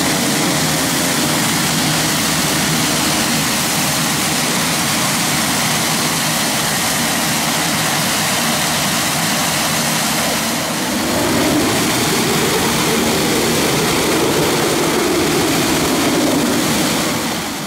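Pilatus PC-21 turboprops running on the ground, a steady mix of PT6A turbine whine and propeller noise as the aircraft taxi and hold with five-bladed propellers turning. About eleven seconds in, the sound shifts and grows a little louder, then fades out at the very end.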